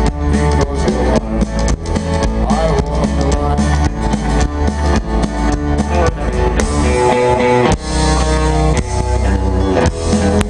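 Country band playing live over a big PA system, with strummed acoustic guitars, electric guitar, bass and drum kit keeping a steady beat.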